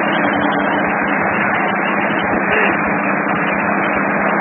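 Bulldozer engine running steadily with a constant low hum.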